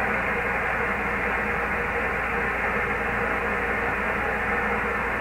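Amateur radio transceiver's speaker putting out steady static hiss with no station on the frequency. The hiss is cut off sharply above about 3 kHz by the receiver's voice filter.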